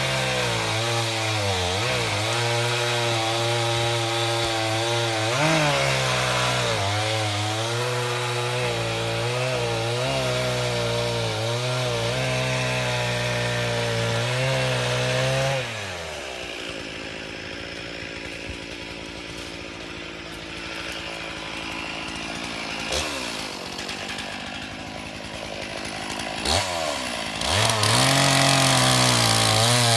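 Small engine running at high speed, its pitch wavering up and down, then dropping to a quieter, lower running about halfway through before speeding up again near the end.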